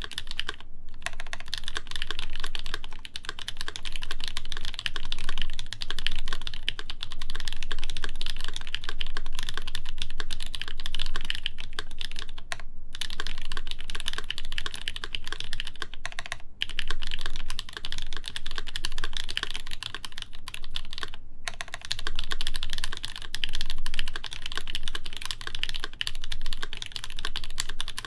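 Continuous fast typing on a RAMA WORKS U80-A mechanical keyboard with lubed, broken-in NK Cream linear switches, a brass plate and GMK keycaps. A steady stream of keystrokes with a few brief pauses.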